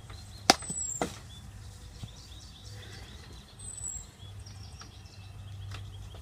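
A lump of frozen slime thrown against a tree: a sharp smack about half a second in, a second, weaker knock about half a second later, and a faint tap near two seconds. Birds chirp faintly in the background.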